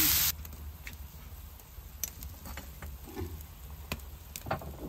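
Steam hissing loudly off the hot wok cuts off abruptly just after the start. After that come faint, scattered sharp pops and ticks from chicken boiling in a wok over a crackling wood fire.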